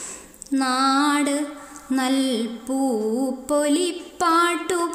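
A woman singing a line of a Malayalam poem in a slow chant, drawing the word 'nāṭu' out over several long, wavering notes with short breaks between them.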